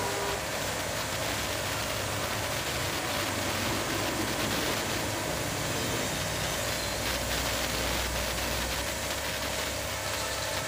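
Pressure washer running, with a steady motor hum and the hiss of its water jet spraying.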